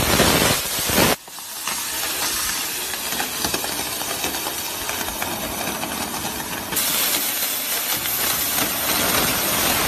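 Water jet from a garden-hose spray nozzle hissing and spattering steadily against a car's metal hood. It is loudest in the first second and grows a little brighter about seven seconds in.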